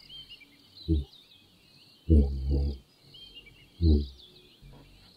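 Giraffe giving short, low hum-like calls: one about a second in, a longer doubled one about two seconds in, and another near four seconds. Birds chirp continuously in the background.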